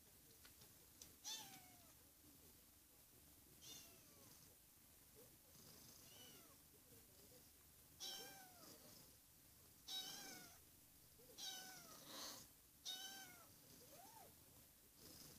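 Kitten meowing again and again: short, high calls that drop in pitch, about eight of them, coming closer together in the second half.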